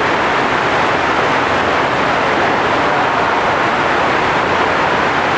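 FlowRider surf simulator's thin sheet of water pumped at high speed up the padded ride surface, making a loud, steady rush of water with no let-up.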